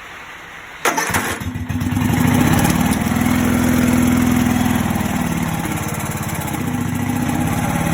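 Electric-start 17.5 hp Briggs & Stratton lawn mower engine cranking about a second in, catching almost at once and then running steadily. It keeps running on its newly fitted replacement carburetor instead of dying after a few seconds.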